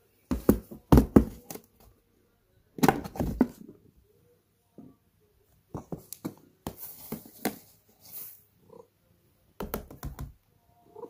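Bursts of sharp plastic clicks and knocks: a plastic catnip tub handled and opened against the floor of a clear plastic storage box, and dried catnip tipped and shaken out of it onto the box floor.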